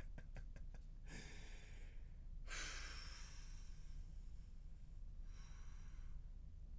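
Faint breathing near the microphone: three soft breaths or sighs, each lasting about a second, the second one the loudest, over a low steady hum.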